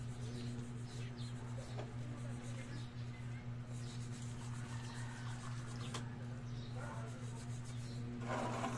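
Face washing at a basin: faint rubbing and splashing of water, with a brief louder splash near the end, over a steady low mechanical hum with a second, higher tone.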